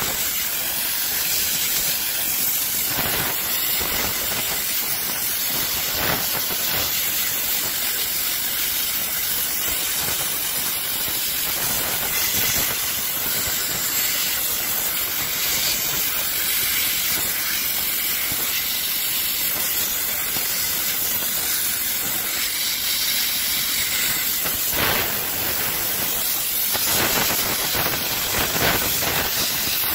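A handheld sandblasting gun blasting paint off a small metal toy part, giving a steady hiss of compressed air and grit with a few brief louder surges. The yellow paint is being stripped down to bare metal.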